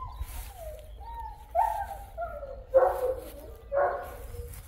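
A dog whining, a few high whines that fall in pitch, then two short yelping barks about three and four seconds in.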